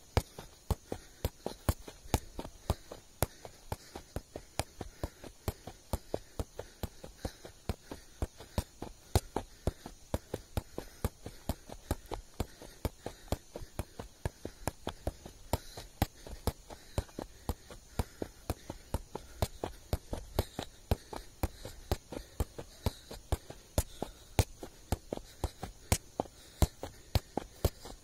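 A football being juggled keepy-uppy style: steady, evenly spaced thuds of the ball off the foot and thigh, about three touches a second, with no break.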